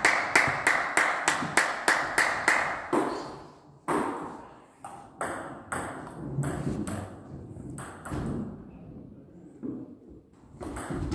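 Table tennis ball hits on bats and table: a quick, even run of taps for about the first three seconds, then single spread-out ball hits as play goes on.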